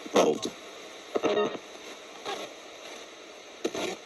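Ghost box radio sweeping rapidly through stations: a steady static hiss broken about four times by short snatches of broadcast sound.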